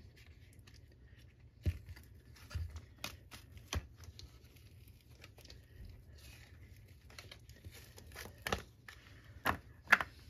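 Flexible silicone mold being peeled and flexed off a cured resin butterfly casting: soft rubbery peeling and crinkling with scattered sharp clicks and taps, the loudest near the end.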